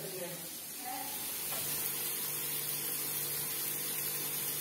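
Masala-marinated prawns frying in oil in a kadhai, a steady sizzling hiss. A low steady hum comes in about a second and a half in.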